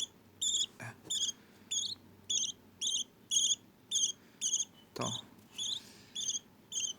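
Budgie chicks giving short, high, evenly repeated begging chirps, a little under two a second, with one brief lower call about five seconds in.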